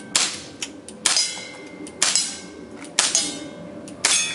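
Pistol shots fired at steel plate targets, about one a second, five in all, each a sharp crack followed by a short metallic ring from the struck plate.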